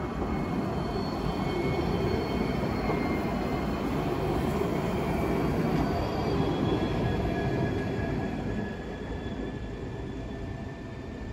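Alstom Citadis 305 tram passing close by. The rumble of its running gear swells, holds for several seconds and eases off about eight seconds in, with thin high-pitched tones whining through it.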